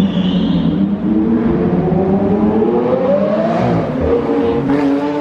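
A sports car's engine accelerating hard: its pitch climbs steadily for about three and a half seconds, drops suddenly at a gear change, then pulls again.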